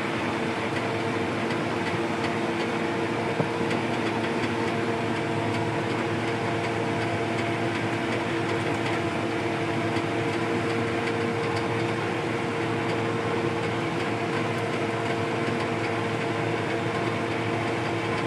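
Combine harvester running steadily, heard from inside its cab: an even mechanical drone with a few constant tones. A single short click about three and a half seconds in.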